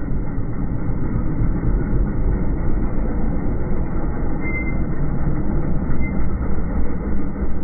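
Linhai M550L ATV engine and tyres on dirt, slowed down with the slow-motion footage into a steady, deep, low rumble.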